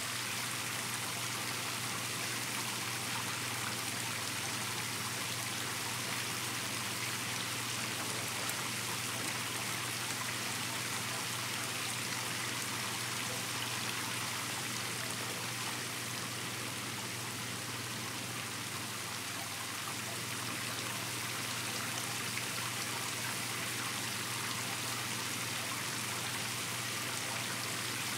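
Shower running: a steady, unbroken spray of water falling.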